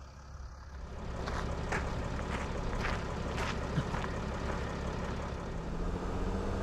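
A vehicle driving along a paved road: a steady low engine hum with road noise, coming in about a second in, with a few faint ticks over it.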